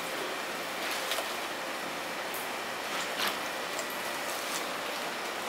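Steady background noise of a busy indoor fish market: an even hiss with a faint hum and a few light clicks and knocks.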